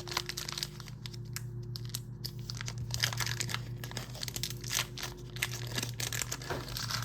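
Foil Pokémon booster pack wrapper crinkling and tearing as it is opened and handled, a dense run of irregular crackles.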